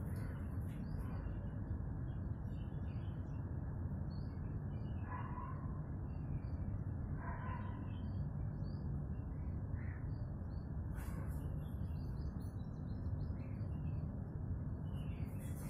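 Birds chirping here and there over a steady low outdoor rumble, with two short louder calls about five and seven seconds in.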